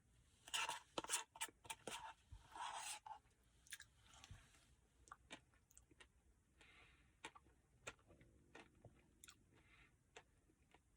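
A person chewing a mouthful of chocolate brownie Blizzard ice cream, with wet mouth clicks and short crunching bursts that are loudest in the first three seconds and then trail off into fainter scattered clicks.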